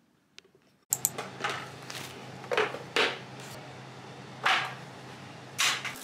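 A series of sharp clicks and knocks, some with a short scraping tail, over a steady low hum. It starts abruptly about a second in.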